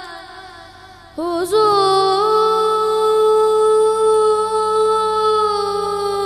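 A boy singing a naat into a microphone: about a second in, his voice comes in with a quick wavering turn, then holds one long steady note.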